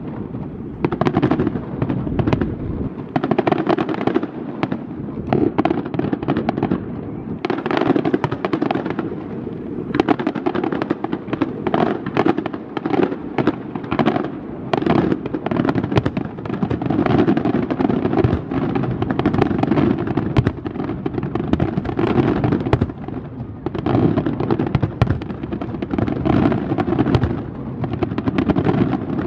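Aerial fireworks display: a dense, unbroken barrage of shell bursts and crackling, many bangs a second.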